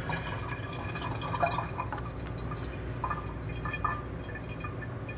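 Metal ladle stirring through bean soup in a slow cooker and lifting out, broth dripping and splashing back into the pot a few times, over a steady low hum.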